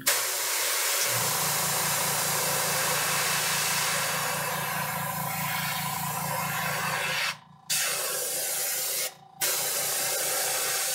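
Airbrush spraying paint: a steady hiss of air and paint, cut off twice for a moment near the end as the trigger is let go. A low, rapidly pulsing hum comes in about a second in and runs under it.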